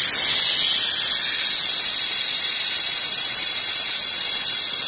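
Compressed air hissing steadily from a tire inflator chuck held on the valve stem of a bottle of transmission fluid, pressurising the bottle to force the fluid out through a hose into the transmission pan. The hiss is loud and high.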